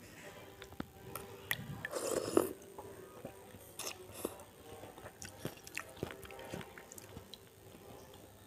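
Close-miked eating of chicken soto with noodles from a metal spoon: chewing and biting with small mouth clicks and scattered short clicks, loudest about two seconds in.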